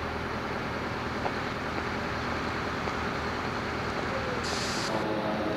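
Steady engine and road noise of a vehicle on the move, with a short hiss about four and a half seconds in.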